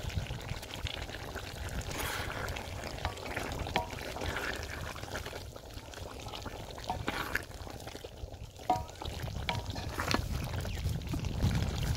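Aloo chicken curry simmering in a large aluminium pot while a wooden spoon stirs through it, with a few light knocks of the spoon against the pot.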